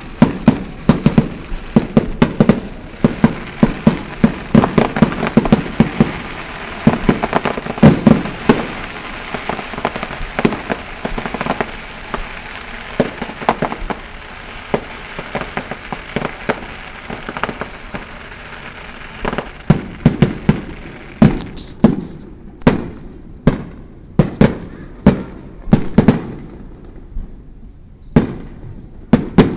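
Aerial fireworks going off in a rapid barrage of bangs over continuous crackling. About two-thirds of the way through the crackle dies away, leaving separate loud bangs with short gaps between them.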